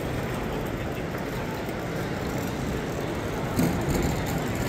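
Steady background hubbub of a busy exhibition hall, a blend of distant crowd murmur and hall noise, with one short clatter about three and a half seconds in.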